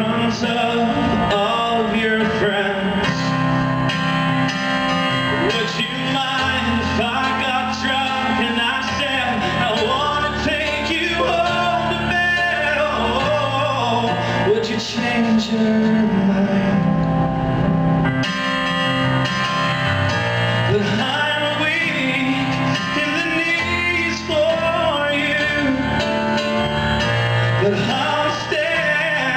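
A man singing live into a microphone while accompanying himself on a stage keyboard.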